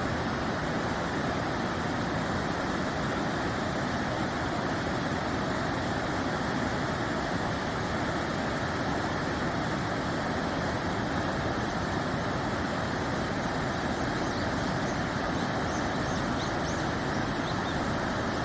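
Stream water rushing steadily, an even, unbroken noise; a few faint high chirps come in near the end.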